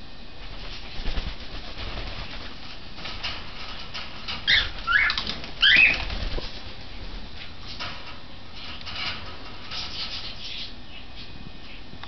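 Pet cockatiel and red-rumped parakeet: wings flapping, with three sharp, short rising calls close together about halfway through, then softer chirps.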